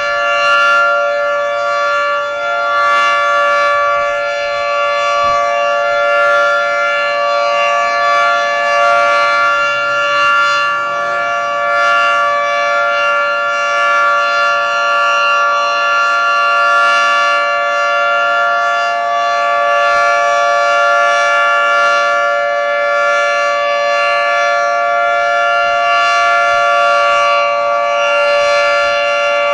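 Federal Signal 3T22 three-tone rotating electromechanical warning siren sounding a steady chord at full speed. The pitch holds constant while the loudness swells and eases slightly as the horn turns.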